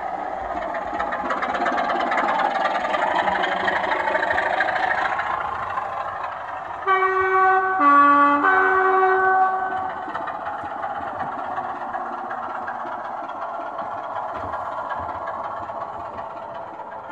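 Model diesel locomotive's DCC sound decoder, playing a diesel engine running steadily through the model's small speaker. About seven seconds in it sounds a two-tone horn lasting about three seconds: a high note, a lower note, then the high note again.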